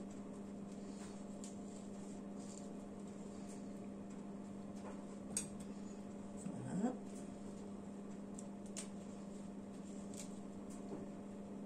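Faint clicks and taps of a knife on a plastic cutting board as pears are cut and cored, over a steady low hum. A brief rising squeak about six and a half seconds in is the loudest sound.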